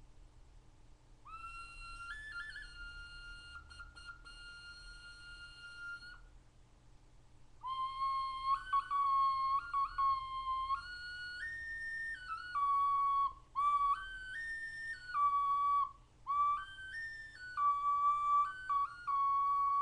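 Small handmade Mexican ocarina shaped like a little mask being blown. First comes one long held note with a brief step up early on. After a short pause come several quick phrases of notes stepping up and down.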